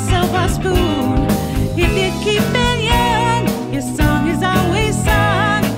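A pop band playing a song: a woman singing lead with vibrato over a drum kit, keyboard and bass guitar, with a steady beat.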